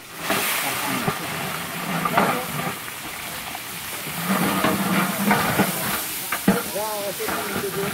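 Rice tipped from a sack into a large pot of hot oil and browned onions over a wood fire, sizzling from the moment it lands; the hiss carries on steadily while a long ladle works in the pot.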